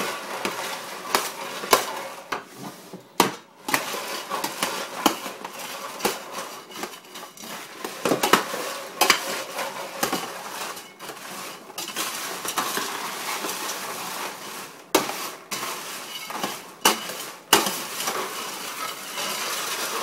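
Metal scoops scraping and clinking against a stainless steel tray as popcorn is tossed and stirred, with the dry rustle of the popcorn; the clatter is irregular, with sharp clinks every second or so.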